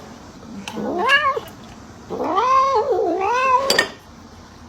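Domestic cat meowing twice: a short rising meow about a second in, then a longer drawn-out meow whose pitch wavers up and down.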